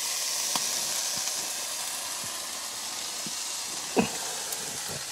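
Minced beef sizzling steadily in a frying pan on a camping gas stove as its water content cooks out, before it browns. A single knock comes about four seconds in.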